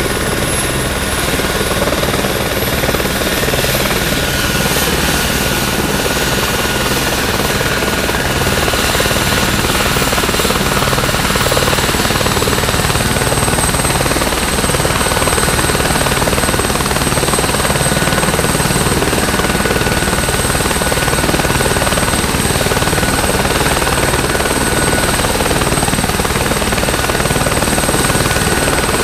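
Light helicopter running on the ground with its main rotor turning: a steady turbine whine over the rotor's low rhythmic chop. About ten seconds in, the high whine rises slightly in pitch and the sound grows a little louder, then holds steady.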